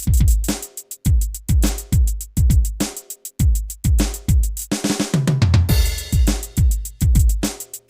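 Electronic drum pad (Octapad) playing a sampled drum patch: a steady rhythm of deep booming bass-drum hits with sharp snare and cymbal-like strikes, with brief breaks about a second in and around three seconds in.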